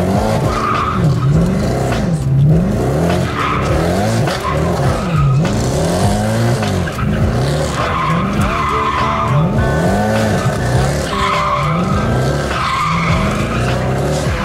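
Mercedes-Benz C63 AMG's 6.2-litre V8 revving up and down over and over, about once a second, as the car drifts in circles, with the rear tyres squealing and skidding in repeated bursts.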